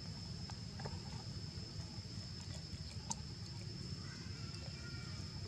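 Outdoor ambience: a steady high-pitched insect drone over a low rumble, with scattered small clicks and rustles of dry leaves as the monkeys move and handle fruit. A faint call sounds briefly about four seconds in.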